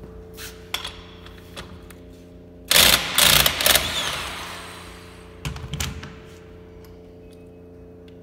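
Impact wrench hammering on the alternator's pulley nut to loosen it: a burst of rapid blows lasting just over a second, then a shorter burst about two seconds later. A few light knocks of parts being handled come before, over a steady low hum.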